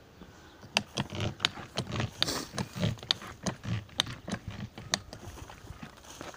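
Footsteps and rustling, crackling leaves as a person moves through dense tomato plants. Sharp clicks and low thuds come about two to three a second, then ease off about five seconds in.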